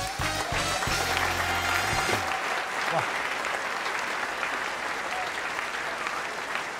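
Studio audience applauding steadily, with a short burst of music over the first two seconds or so.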